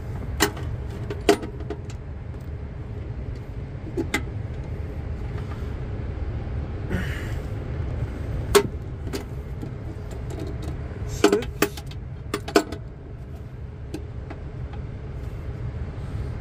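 Scattered sharp metallic clicks and clinks from a socket wrench on a long extension bar working the union of an Airbus door slide's inflation hose loose, over a steady low rumble.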